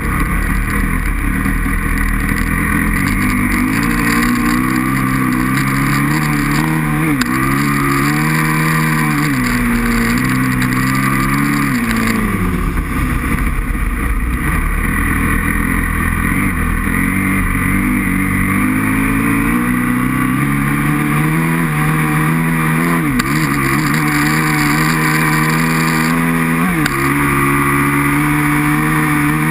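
Aprilia RXV 550's V-twin four-stroke engine running hard, its revs climbing and then dropping sharply several times as the rider shifts and rolls off the throttle.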